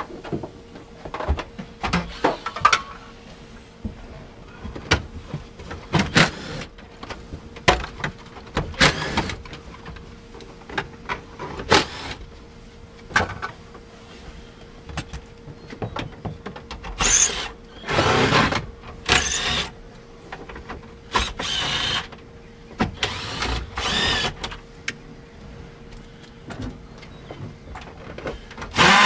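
Clicks and knocks of plastic dashboard trim being pried and handled. From about halfway there is a series of short bursts, each half a second to a second long, from a DeWalt cordless drill-driver running out dash screws.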